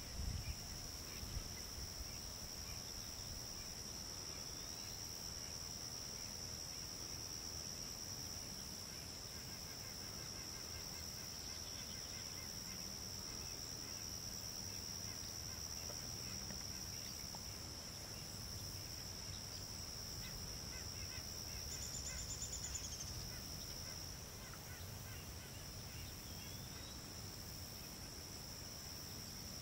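Steady high-pitched chorus of crickets or other insects, with faint bird calls now and then and a couple of low bumps in the first second or two.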